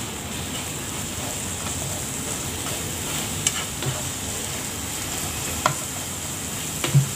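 Beaten eggs frying in oil in a non-stick pan, a steady sizzle, with a few taps and scrapes of a slotted spatula against the pan as the eggs are broken up, the firmest knock near the end.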